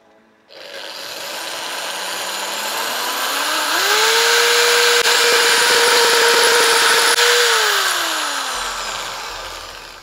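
Electric hammer drill boring into brick: the motor starts about half a second in, speeds up over a few seconds, runs steady with a loud hammering grind, then winds down and stops near the end.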